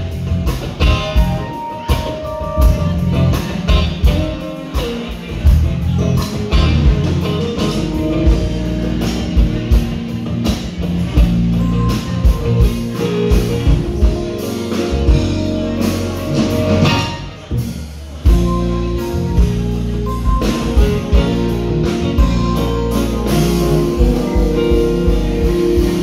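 Live band playing with electric guitar and drum kit, loud with a steady beat.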